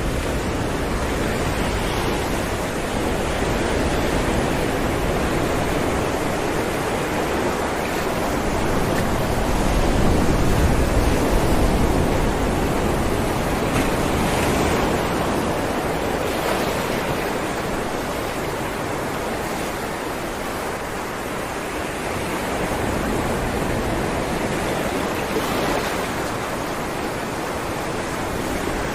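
Ocean waves breaking on rocks: a continuous wash of surf that swells and eases, loudest around ten seconds in.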